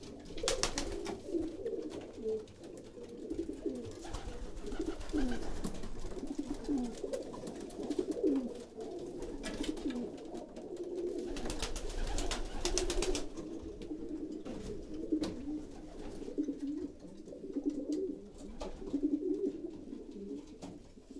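Several racing pigeons cooing, short rising-and-falling coos overlapping one another all through: courtship cooing of birds pairing up in the breeding loft. A few spells of fast clicking and rustling come near the start and again at about nine to thirteen seconds in.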